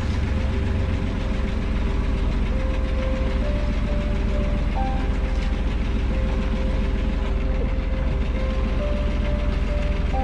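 Catalina 30 sailboat's inboard engine running steadily, a deep continuous rumble, as the boat motors with its sails down.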